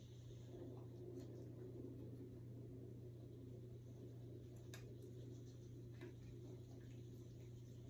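Near silence: steady low-hum room tone with a few faint soft clicks, about a second in, near the middle and about six seconds in.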